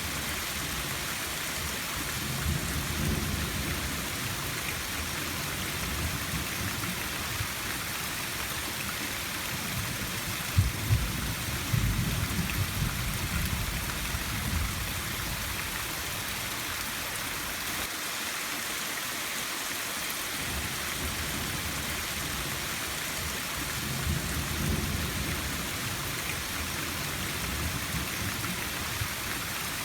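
Steady rain falling, with thunder rolling in three low rumbles. The loudest comes about a third of the way in and opens with two sharp cracks; the others are shortly after the start and near the end.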